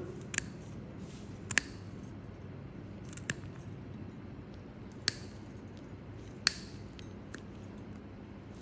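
Heavy-duty toenail nippers snipping through a thickened toenail: six sharp cutting clicks spaced one to two seconds apart, the loudest about a second and a half in.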